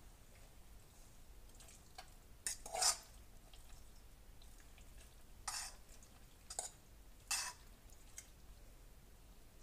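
A spoon stirring in a cooking pot: a handful of short scrapes and clinks of the spoon against the pot, the loudest about three seconds in.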